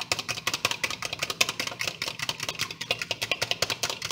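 A raw egg being whisked briskly with a utensil in a small cup, a rapid, even run of clicking strokes.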